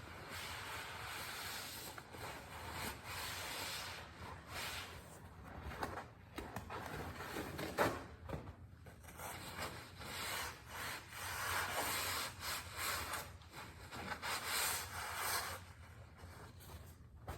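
Irregular rubbing and wiping strokes against a surface, coming in uneven swishes with short pauses, with a sharp click about eight seconds in.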